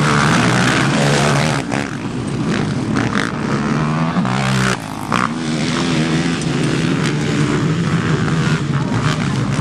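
ATV engine running steadily, its pitch rising and falling a little with the throttle and easing off briefly about halfway through.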